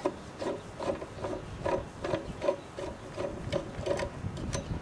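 A screw being backed out of sheet metal with a nut driver, squeaking in short repeated chirps about four times a second, with a couple of sharp clicks near the end.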